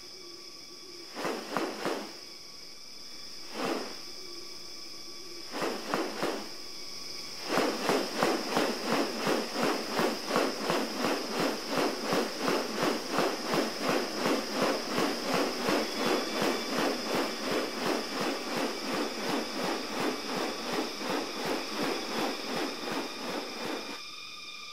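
Rainforest ambience with a steady high insect drone. Three separate short rasping bursts are followed, from about a quarter of the way in, by a rhythmic pulsing at about three beats a second that keeps on until just before the end.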